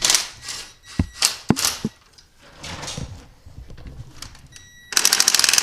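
Metal parts and tools being handled with several sharp knocks and clinks, then near the end a power tool starts with a loud, fast, steady rattle.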